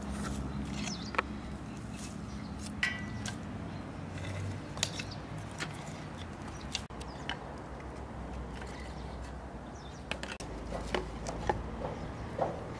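Dry sticks and pieces of wooden plank being laid onto a pile of dry grass kindling to build a fire: scattered light wooden knocks and rustles, with several in quick succession near the end.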